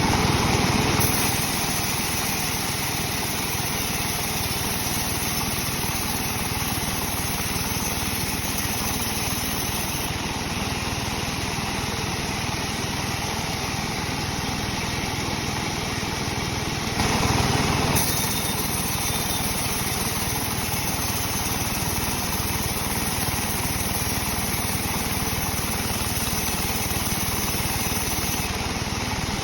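Sawmill machinery running with a steady mechanical drone, briefly louder for about a second partway through.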